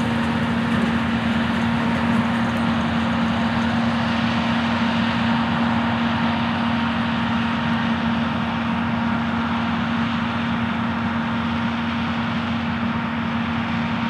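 New Holland T9.450 tractor's diesel engine running steadily as it pulls a grain cart across a field: a continuous drone with a constant low hum, fading slightly toward the end as it moves off.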